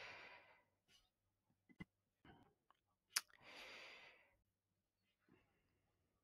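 Near silence with a few faint, sharp computer mouse clicks, the clearest about three seconds in, followed by a soft breath.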